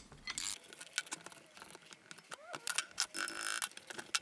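A metal hand tool scraping and clicking against a powder-coated VW T25 Syncro brake caliper in a string of sharp knocks, with a short squeak about two and a half seconds in and a longer scrape near the end.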